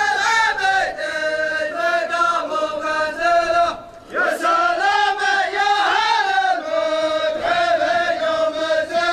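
A group of men chanting a verse together in unison, holding long notes that rise and fall slowly, with a short pause for breath about four seconds in.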